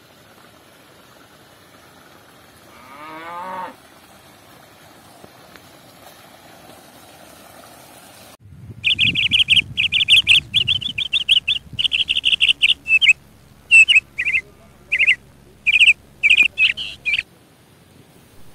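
Birds chirping and calling loudly in a rapid, broken series lasting several seconds. Earlier, quieter, comes a single short animal call rising in pitch, like a cow's moo.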